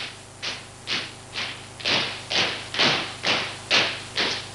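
Steady rhythmic thuds, a little over two a second, each sharp at the start and dying away quickly; they grow louder about two seconds in.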